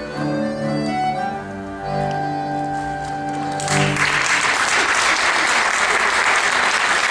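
Live folk trio of flute, cello and accordion playing the last bars of a hambo, ending on a held chord a little past halfway through. Then the audience applauds.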